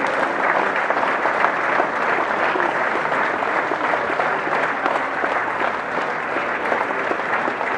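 Large audience of students applauding, a dense, steady clapping that goes on without a break.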